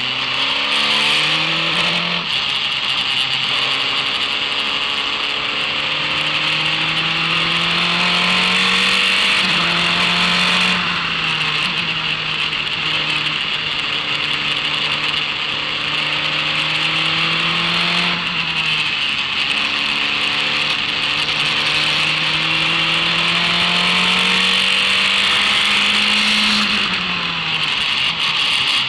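Formula race car engine under power, its pitch climbing steadily through each gear and dropping sharply at upshifts several times, with a steady high hiss over it.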